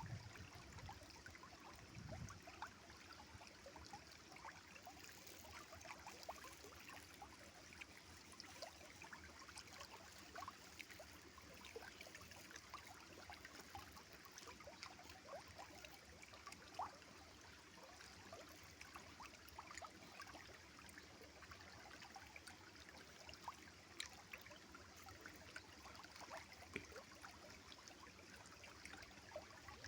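River water running and trickling: a quiet, steady rush scattered with many small irregular splashes and drips.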